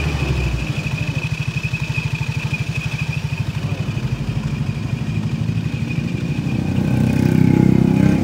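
Yamaha Mio Soul i scooter engine running with the CVT cover off, its drive belt and clutch turning, with a steady high-pitched hiss over the engine's even pulsing; the engine swells louder near the end. The hiss is the CVT noise that the mechanic says only a new torque drive will fully cure.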